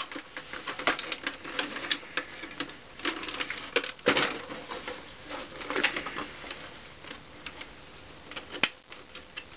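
Plastic casing of a 1990s stereo being handled and pressed back together by hand: irregular clicks, taps and rattles of the housing, with a louder knock about four seconds in and another near the end.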